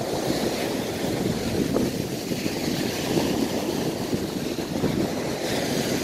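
Ocean surf washing on the beach at high tide, with wind buffeting the microphone: a steady, even rush.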